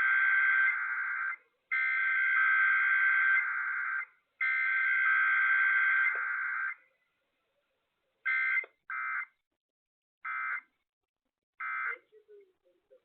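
Emergency Alert System SAME data header broadcast over AM radio: three long, raspy two-tone digital bursts with short gaps between them, followed by four short end-of-message data bursts, as for a required weekly test.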